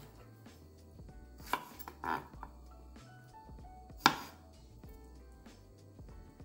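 Kitchen knife slicing strawberries on a wooden cutting board: a few separate knocks of the blade against the board, the loudest about four seconds in. Quiet background music plays underneath.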